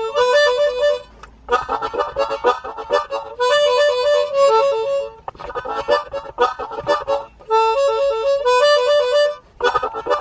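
Harmonica playing a rhythmic riff: quick chugging chord stabs, then a bouncing figure that alternates between two notes. The phrase repeats about every two seconds, with a brief pause between phrases.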